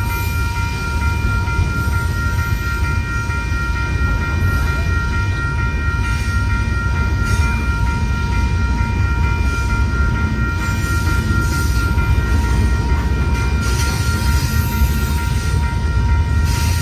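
Double-stack intermodal freight train rolling through a grade crossing with a steady rumble of cars and wheels, while the crossing's newly installed electronic bell rings on and on in a steady, high-pitched tone.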